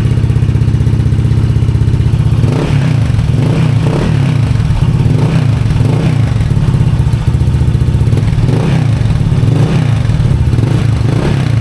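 Honda ADV 160 scooter's single-cylinder engine breathing through an aftermarket Replica Pro 'silent killer' exhaust. It idles steadily, then from about two and a half seconds in is blipped over and over, roughly once a second, each rev rising and dropping back.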